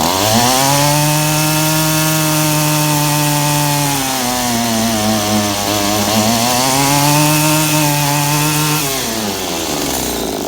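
Stihl string trimmer's two-stroke engine revved to full throttle on a test run after a fuel filter change. It eases off and picks up again around the middle, then drops back toward idle near the end.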